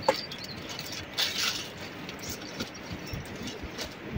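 Scattered light clicks and small knocks around a wood cooking fire, from firewood sticks being handled and the fire itself, over a low steady background.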